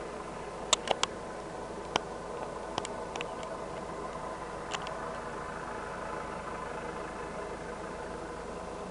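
Distant helicopter hovering: a steady engine-and-rotor drone with an even, constant pitch. A few sharp clicks come in the first five seconds.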